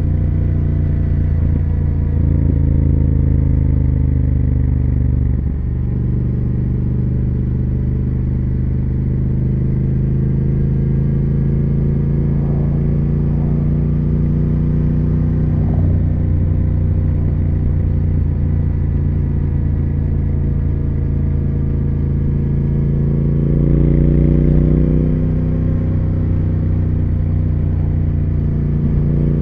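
2020 Triumph Speed Twin 1200's 1200 cc parallel-twin engine and exhaust running steadily while under way. The engine note drops briefly about five seconds in, and swells up in pitch and loudness for a moment a few seconds before the end.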